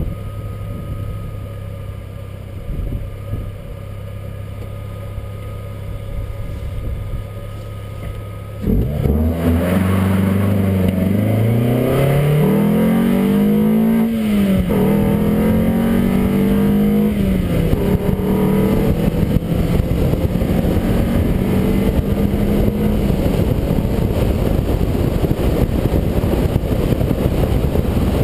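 Ford Escort RS 2000's engine idling steadily, then, about nine seconds in, pulling away hard and accelerating. Its pitch rises and drops back twice as it shifts up, then holds steady while a rush of wind and road noise grows over it.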